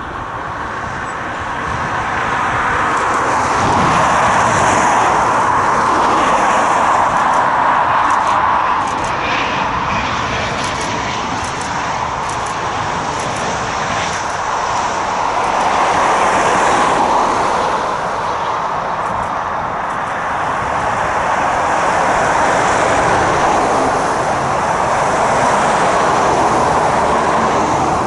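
Jet engine noise from a three-engined Dassault Falcon business jet coming in to land: a loud, steady rushing sound that swells and eases several times.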